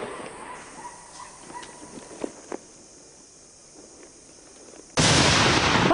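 A few faint clicks, then about five seconds in a sudden loud burst of gunfire that lasts about a second.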